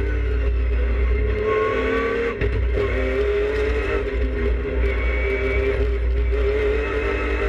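Race car engine heard from inside its stripped, roll-caged cabin while being driven hard on track, under a heavy low rumble. The engine note climbs and falls, with short breaks about two and a half and four seconds in.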